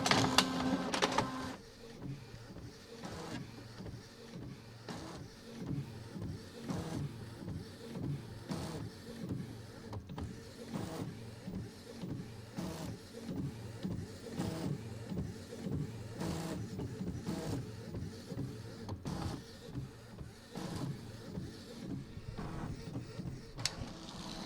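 Printer running a print job: a louder motor whine for the first second or so, then a repeating whirring and clicking, with a sharper click every second or two.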